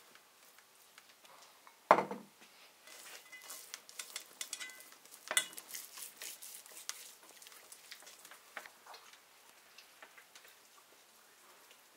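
Hands rubbing a wet marinade over the skin of a raw goose on a metal tray, with small wet smearing and squelching crackles. A thump about two seconds in is the loudest sound, and a sharper knock comes about five seconds in.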